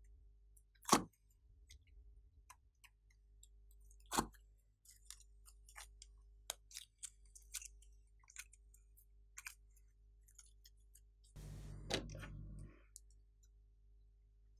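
Plastic slime containers and lids clicking and tapping as hands pick them up and set them down, with two sharper knocks about one and four seconds in and scattered light ticks after. A brief rustle with a click comes about eleven seconds in.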